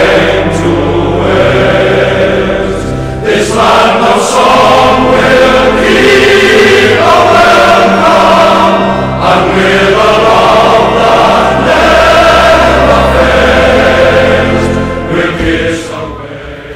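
Background music: a choir singing in held chords over steady low notes, fading down near the end.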